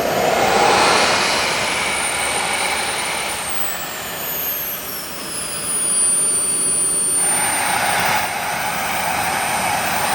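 Model jet turbine engines of a giant RC C-17 running on the ground. A high whine drops in pitch over a few seconds as the throttle comes back, then a louder rush of exhaust swells up. Near the end the whine starts falling as the turbines spool down.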